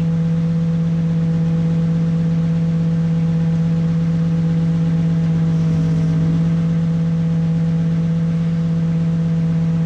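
The engine of a backhoe used as a crane runs steadily at a constant speed, with a strong low hum and a slight change in tone about six seconds in, while it holds a suspended load.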